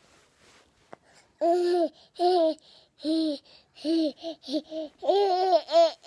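A baby babbling: a string of short, high-pitched vocal sounds starting about a second and a half in, quickening into fast wavering sounds near the end.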